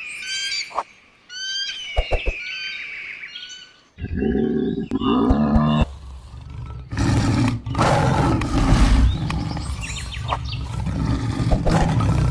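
Short bird chirps for the first few seconds, then loud, low animal calls from about four seconds in.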